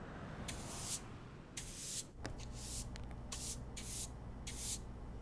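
Short bursts of hissing, like quick squirts of an aerosol spray, come irregularly about twice a second. A steady low hum sets in about two seconds in.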